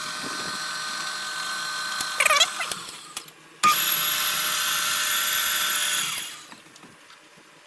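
Metal lathe taking a cut on a hinge pin, turning it down by 15 thousandths: a steady, high-pitched cutting hiss over the running machine. The cut stops briefly about three seconds in, resumes louder, and dies away about six seconds in.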